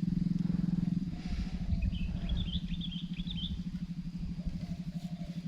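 A small engine running steadily with a fast, even pulse, and a short run of high bird chirps about two seconds in.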